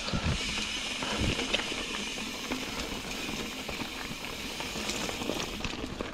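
Ibis Ripmo v2 mountain bike riding over loose rocky dirt singletrack: a steady hiss of knobby tyres on gravel with small clicks and rattles from the bike, and a few low thumps in the first second or so.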